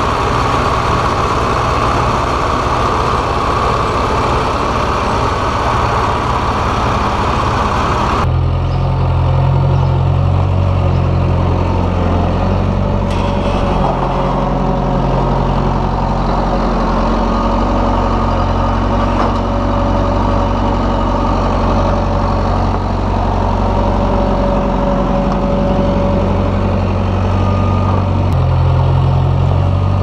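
Tractor running as it pulls a round baler through the hay, a steady mechanical noise. About eight seconds in this cuts to the steady low drone of a Bobcat skid-steer loader's engine running close by.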